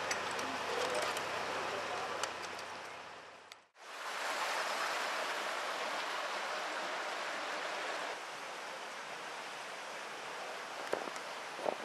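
Steady outdoor background hiss with no distinct events. It fades out about three and a half seconds in and comes straight back in at an edit.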